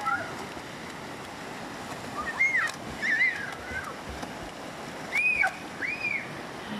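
Swollen, muddy river current rushing steadily with splashing from swimmers in it. Children's high-pitched shouts come a few times over the water.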